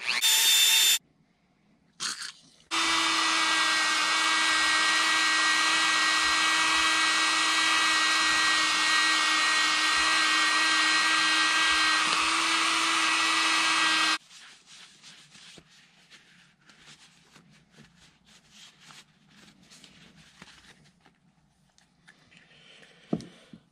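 Dremel rotary tool spinning a stainless steel wire brush against the end of a chainsaw crankshaft, scrubbing off melted plastic. A short burst comes right at the start, then after a pause the tool runs at a steady speed with an even whine for about eleven seconds and stops abruptly, leaving faint clicks of parts being handled.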